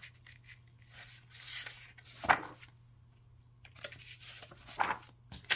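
Loose sheets of printer paper being turned over and handled: several brief rustles, the loudest about two seconds in.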